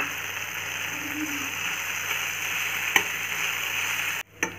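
Fenugreek greens and mashed potato sizzling in a stainless-steel kadai as they are stirred together with a slotted metal spatula, with a sharp click of the spatula on the pan about three seconds in. The sizzling cuts off abruptly near the end.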